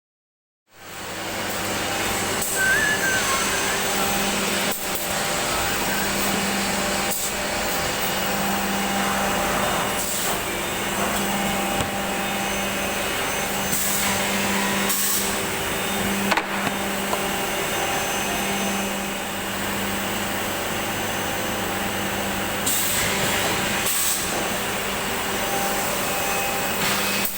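A six-sided CNC panel drilling machine (CD-612) running, with a steady motor hum, scattered knocks and several brief hisses.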